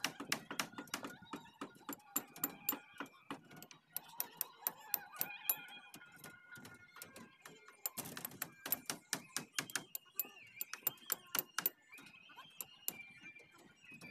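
Hand tool tapping and clicking against the steel rebar mesh of a roof slab, a fast, irregular run of sharp metallic clicks, several a second. There is a short lull about four seconds in and a denser flurry past the middle.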